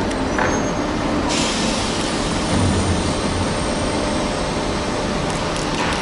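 Steady mechanical din of a crane hoisting a loaded remote-control clamshell grab full of coal, with a low hum underneath and a hiss that comes in about a second in.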